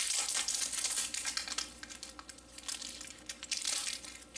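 Plastic packaging crinkling and rustling as a rolled, wrapped bandana is handled. The rustle is loudest in the first second and goes on more lightly after.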